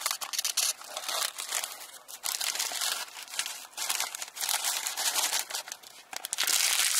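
Takeout food packaging crinkling and rustling in irregular bursts as a fried chicken meal is unwrapped and handled.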